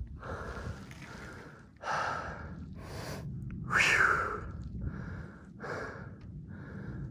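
Mountain biker breathing hard and fast, about eight heavy breaths spaced just under a second apart, the loudest about four seconds in, over a low steady rumble.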